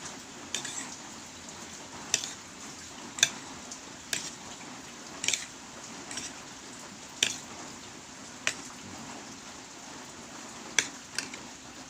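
Steady rain hiss with about ten sharp clicks and clinks scattered through it, typical of utensils tapping a bowl while a salad is mixed.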